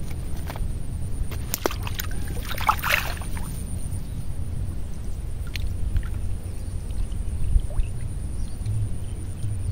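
Steady low rumble with water gurgling and sloshing at the edge of a shallow flooded ditch, and a short burst of splashing and rustling about two to three seconds in.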